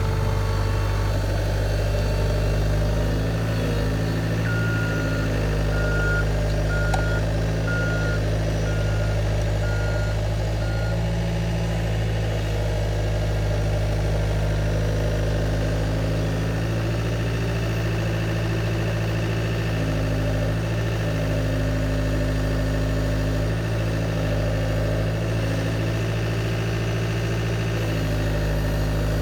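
CAT tracked skid steer's diesel engine running steadily, with its reversing alarm beeping about seven times, roughly once a second, several seconds in as the machine backs up.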